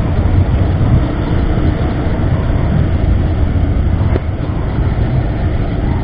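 Riding noise on a Bajaj Pulsar 150 motorcycle: its single-cylinder engine running at steady cruising speed under a heavy, even rush of wind on the microphone. A brief click comes about four seconds in.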